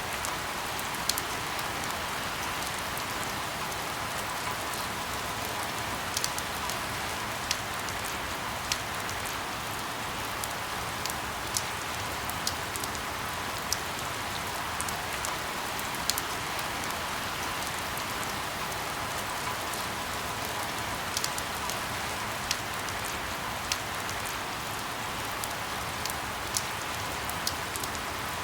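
Steady rain hiss, with scattered sharp ticks of single drops landing every second or so.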